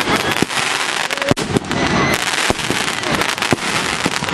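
Fireworks going off in a display: many sharp cracks and bangs over a steady crackling hiss.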